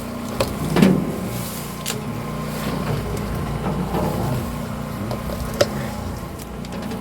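A motor running with a steady low hum, with a few brief clicks and knocks over it, one sharp click near the end.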